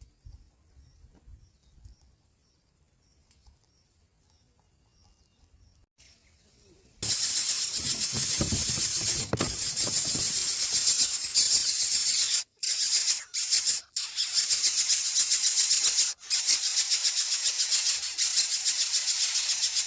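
Near silence for about seven seconds, then an insect chorus starts abruptly: a loud, high, fast-pulsing rattling buzz typical of cicadas. It cuts out briefly a few times near the end.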